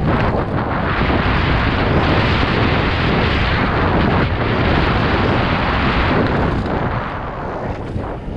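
Loud wind buffeting a helmet or bar-mounted action-camera microphone, mixed with the knobby tyres and frame of a Specialized Stumpjumper 29 mountain bike rolling and rattling over dry dirt at downhill race speed. The rush eases a little near the end.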